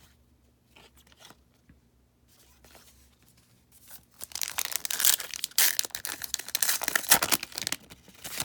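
A baseball card pack's wrapper being torn open and crinkled. It starts about four seconds in, after a few light clicks, and runs as a dense, loud crackle for about four seconds.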